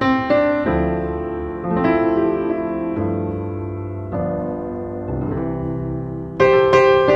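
Background piano music: slow chords and single notes struck one after another, each ringing and fading, with a louder chord struck near the end.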